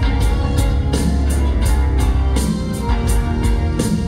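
Live rock band playing instrumentally: electric guitar, electric bass and drum kit, with a heavy bass line and a regular drum beat about two or three strokes a second.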